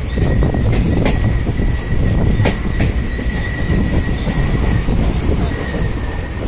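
Train running on rails: a heavy steady rumble with a thin, steady high squeal over it and a few sharp clicks, about a second in and again at about two and a half seconds.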